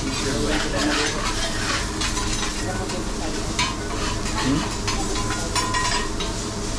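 Salmon sizzling on a hot teppanyaki griddle, a steady frying hiss, with repeated short scrapes and taps of metal spatulas working the food on the steel plate.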